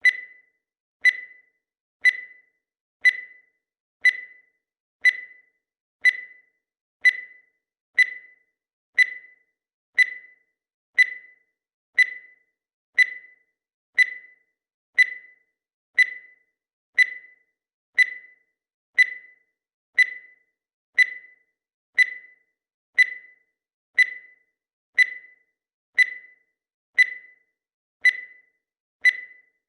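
Countdown timer sound effect: a short, high-pitched beep once every second, each one fading quickly, ticking off the seconds.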